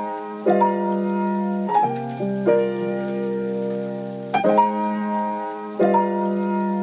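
Instrumental break in a sped-up K-pop ballad: a piano plays sustained chords, one struck every second or so, with no vocals.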